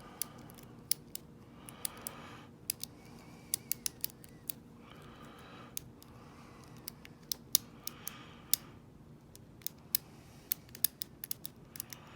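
Lock pick and tension wrench working the pins of a V5 euro cylinder lock, with irregular small metallic clicks, several close together at times. The lock is not yet opening.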